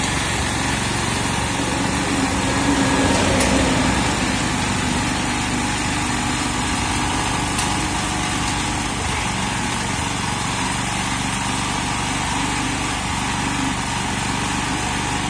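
Engine of a Yanmar walk-behind tractor converted to a rotary grass mower, running steadily in place, a little louder for a moment about three seconds in. The machine does not drive off: its clutch cable, stuck from long disuse, has not released the clutch.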